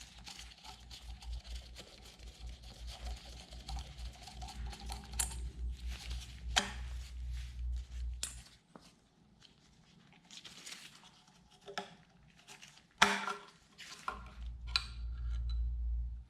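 Metal tools and engine parts clinking and knocking against each other as they are handled, with a loud knock about 13 seconds in, over a low steady hum.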